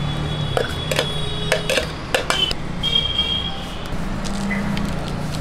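Roadside street noise with a steady low engine hum from traffic. Several sharp clinks and knocks and a few brief high tones come through it.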